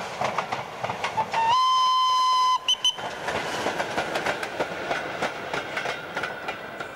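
Steam tram locomotive and its wagons passing on the rails, wheels clicking steadily over the track. About a second and a half in, the steam whistle gives one blast of about a second, then two short toots. The clatter of the wagons rolling by then fades slowly.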